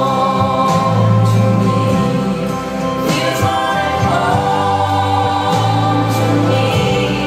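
A song: a singing voice over instrumental backing with long held bass notes.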